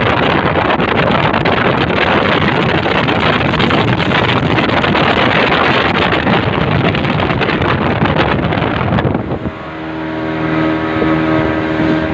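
1987 Johnson 140 V4 two-stroke outboard running at speed, its note mostly buried under rushing wind and water noise. About nine seconds in the noise drops away and the engine's steady, clearly pitched note comes through.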